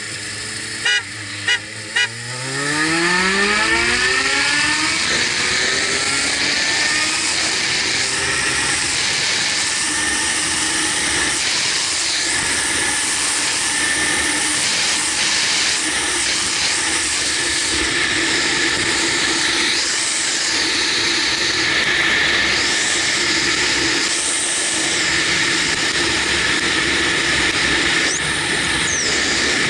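Three short loud blips, then a Kawasaki Versys 1000's inline-four engine accelerating, its pitch rising for a few seconds, giving way to steady wind rush on the helmet microphone at cruising speed with the engine running underneath.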